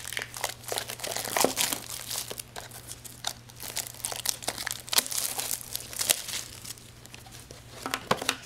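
Packaging being crinkled and torn open by hand as a sealed trading-card box is unwrapped: dense, irregular crackling, over a faint steady hum.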